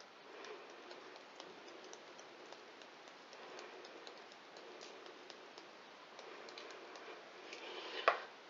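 Faint, irregular light ticking of a plastic spice shaker being shaken over flatbread dough, scattering dried Italian herbs. There is a slightly louder knock just before the end.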